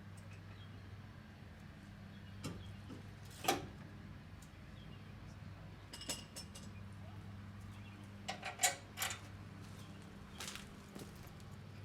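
Scattered sharp metallic clicks and clinks of loose metal parts and tools being handled, with a quick cluster of clinks about two thirds of the way through, over a steady low hum.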